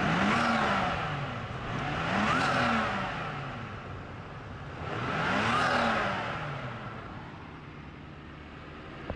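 Nissan Skyline ER34's RB25DET turbocharged straight-six, on its standard blow-off valve with a pod filter, revved three times from idle; each rev rises and falls in pitch, and the engine then settles back to idle.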